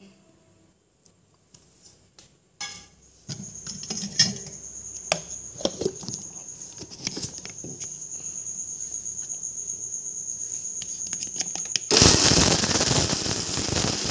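Electric mixer grinder (mixie) grinding raw prawns into a thick coconut spice paste with no water added. The motor starts about three seconds in, running with a high thin whine and rattling, growing slowly louder, then becomes much louder near the end.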